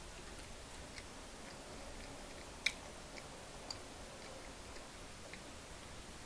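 Faint, scattered light clicks and taps over a quiet background hiss, with one sharper click about two and a half seconds in.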